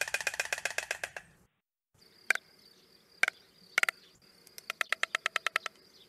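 White stork bill-clattering, the beak snapped open and shut rapidly. A fast, even rattle of clacks stops about a second and a half in. After a short pause come a few single clacks, then another short fast rattle near the end.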